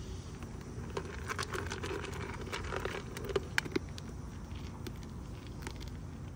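White-tailed deer buck eating close up with its muzzle in a bucket: a run of quick chewing clicks, thickest between about one and four seconds in.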